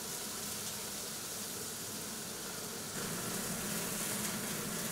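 Food sizzling in frying pans on a restaurant stove: a steady hiss that gets a little louder about three seconds in.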